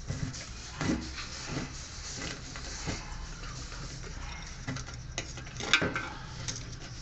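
Irregular knocks and clatter of hand work on a front-load washing machine, as parts are tapped into place, over a low steady hum. The loudest knock comes a little before six seconds in.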